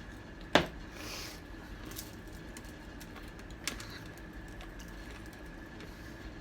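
Mealtime handling sounds at a table: a sharp click a little after the start, a brief crackly rustle just after it, and a softer tap about halfway through. A faint steady high-pitched tone hums underneath.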